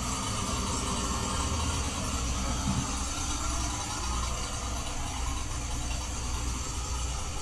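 Steady low hum and rush of ventilation air-handling fans inside a steel ship's compartment.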